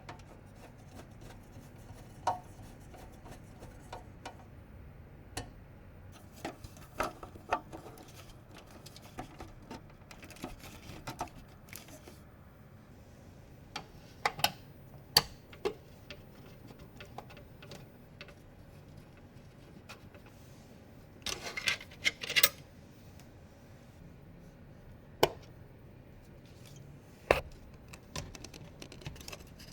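Computer parts being handled and fitted during a PC assembly: irregular clicks, taps and light knocks, with a short burst of rattling about two-thirds of the way through.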